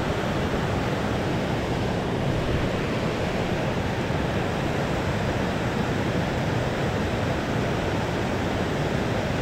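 Steady rush of river water spilling over a low concrete weir close by.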